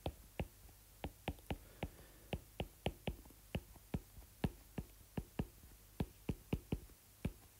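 Stylus tapping and clicking on a tablet's glass screen while handwriting: a string of short, sharp clicks at an uneven pace, about three a second.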